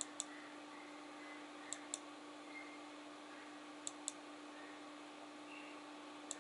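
Pairs of sharp, light clicks, each pair two quick clicks, repeating about every two seconds (four pairs), over a faint steady hum.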